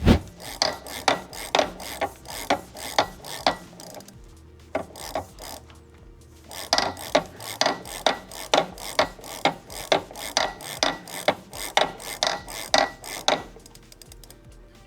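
Ratchet wrench being worked in quick strokes, clicking about twice a second, with a pause of a couple of seconds midway before the ratcheting picks up again.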